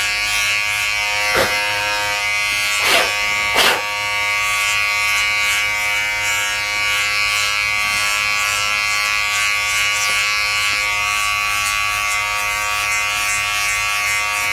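Philips BodyGroom 7000 Series electric body groomer buzzing steadily as its trimmer, with no comb attached, cuts belly hair. A few brief louder blips come in the first four seconds.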